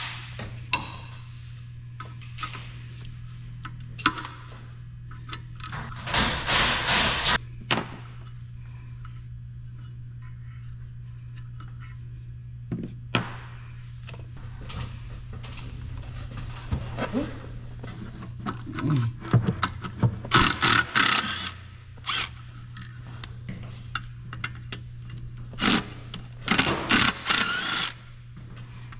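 Hand tools working on parts in a truck's engine bay: scattered clinks and knocks, and four short rasping bursts about a second and a half long, over a steady low hum.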